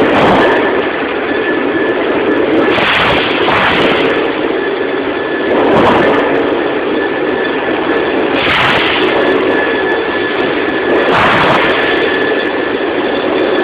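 PETRA DC300A dual-column band saw cutting a 100 mm stainless steel 304 bar: a steady machine hiss and hum with a thin high whine, swelling into a louder rush of noise about every two to three seconds.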